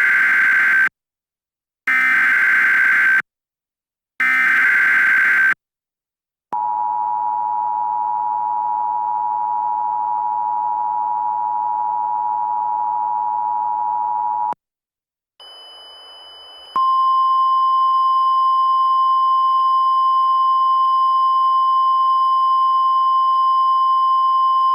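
Emergency Alert System tones opening a flash flood warning. Three short raspy SAME digital header bursts, about a second apart, are followed by the two-tone EAS attention signal held steady for about eight seconds. After a brief hiss, a single steady NOAA Weather Radio warning alarm tone starts about 17 seconds in over static.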